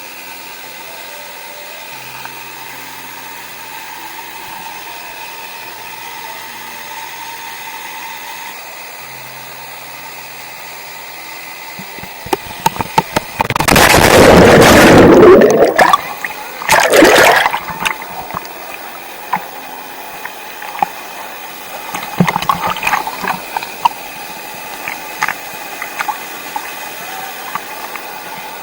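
Steady rushing of a waterfall into a swimming pool. About halfway through comes a loud surge of rushing noise lasting a couple of seconds, then a second shorter one. Scattered small splashes and knocks follow near the end.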